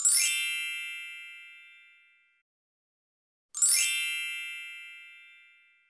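Sparkle chime sound effect, twice: each a quick glittery shimmer of high tinkling tones that settles into a ringing chord and fades out over about two seconds, the second about three and a half seconds in.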